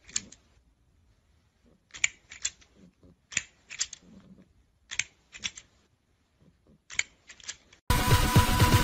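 Plastic clacking of a toy crocodile on an extending scissor arm, in quick groups of two or three sharp clicks about every second and a half. Loud music with a steady beat cuts in suddenly near the end.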